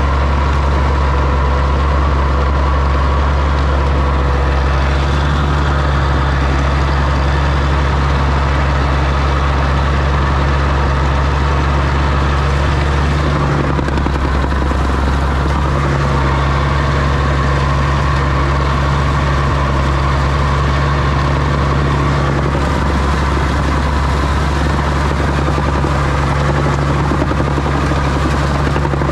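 Oliver OC-6 crawler tractor's engine running steadily at a constant speed, a loud low drone.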